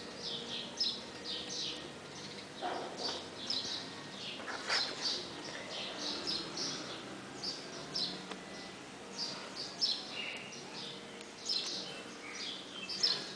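Birds chirping, with many short high notes in quick, irregular runs.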